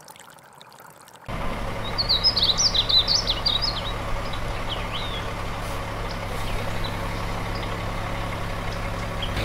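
A steady low engine hum, like an idling truck, starts abruptly about a second in and runs on unchanged. A bird chirps a quick string of high notes for about two seconds soon after it starts.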